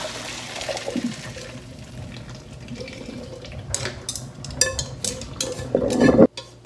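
Hot noodle water and cha-soba noodles pouring from a pot into a plastic colander in a stainless steel sink, with a steady rush of water draining. From a little past the middle come sharp clicks as chopsticks scrape the last noodles out of the pot. A final louder rush of water cuts off suddenly near the end.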